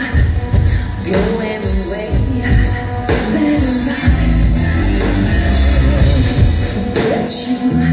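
Live rock band playing loudly through a stage sound system: a woman singing lead over electric guitars and drums.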